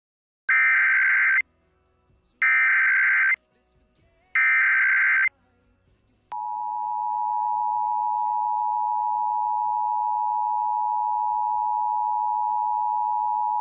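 Emergency Alert System alert opening: three short bursts of digital SAME header data tones, about a second each and two seconds apart. About six seconds in, the steady two-tone EAS attention signal starts and holds.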